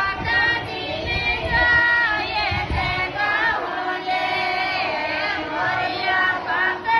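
A woman singing a Mataji geet, a Rajasthani devotional folk song to the Mother Goddess, as a continuous melodic line.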